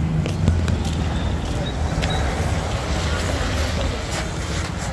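Steady low engine rumble of road traffic, with a few faint ticks over it.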